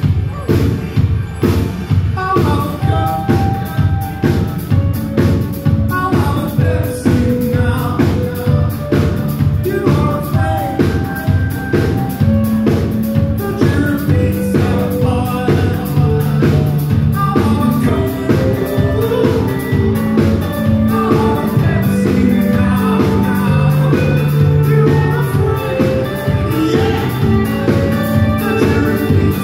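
Rock band playing live: drum kit keeping a steady beat, electric guitar and a male lead vocal.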